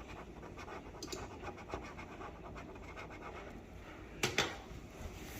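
Rapid, repeated scraping strokes against a stovetop, working off a last bit of baked-on grease, with a louder stroke about four seconds in.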